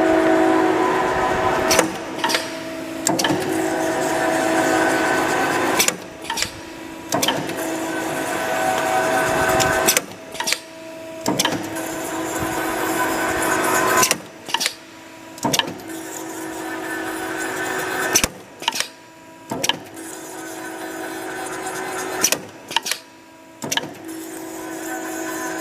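Automatic wire thread-rolling machine working through repeated cycles: a steady humming run that swells over about four seconds, then a short cluster of sharp clacks, the pattern repeating about every four seconds.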